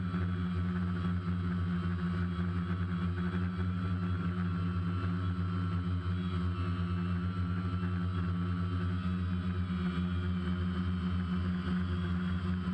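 DJI Phantom quadcopter's four electric motors and propellers humming steadily in flight, heard through the GoPro mounted on the drone itself.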